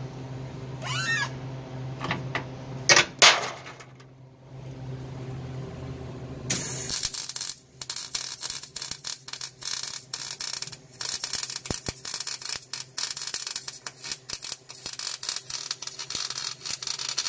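A wire-feed welder laying a bead on the steel frame horn of a 1970 Buick Riviera: from about six and a half seconds in, a steady crackling sizzle with brief breaks between passes. Before the arc strikes there is a low steady hum and two loud sharp clicks about three seconds in.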